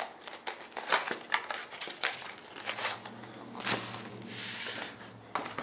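Cardboard trading-card box being opened by hand and its plastic-wrapped packs handled: a run of irregular crinkles, rustles and small tearing sounds.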